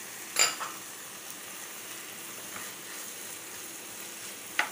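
Vegetables in Schezwan sauce sizzling steadily in a frying pan on a gas burner, with boiled rice just tipped in on top. There is a knock about half a second in and a short click near the end.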